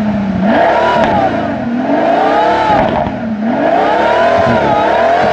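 Pagani's Mercedes-AMG V12 being revved hard while stationary. The engine pitch swings up and down in about three long revs.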